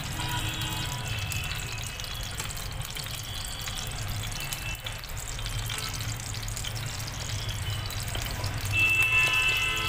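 Mustard oil heating in a steel kadhai, a steady soft sizzle over a low hum. Faint high tones of music come in near the end.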